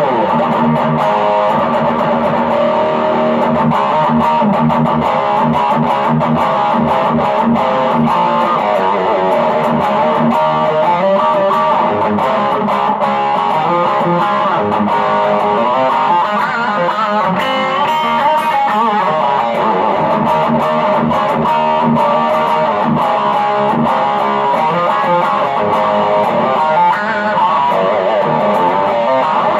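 M-Musi Virgo Fusion electric guitar played on its humbucker through stacked overdrive pedals at high gain, with continuous distorted riffing and lead lines through a Quilter SuperBlock US amp.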